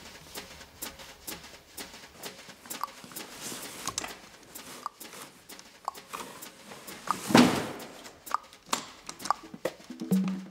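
Sharp clicking steps on a hard floor, about two a second and uneven. About seven seconds in there is a louder half-second clatter at a door.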